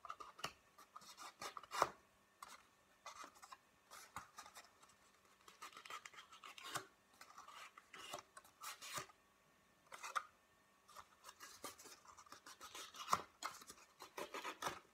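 Faint, irregular rustling and scraping of cardstock handled and curled by fingers, in short bursts with pauses between.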